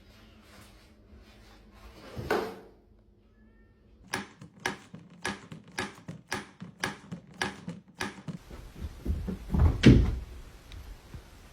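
A cat, with a run of sharp knocks, about two a second for some four seconds, then a heavier thump near the end.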